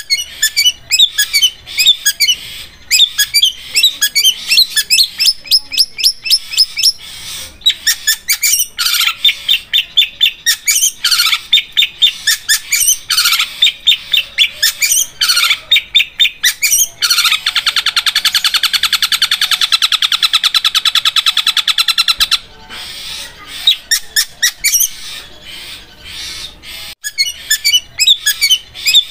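Long-tailed shrike (cendet) singing: rapid runs of sharp, high chattering notes, broken by a very fast, even trill like a sewing machine that lasts about five seconds past the middle.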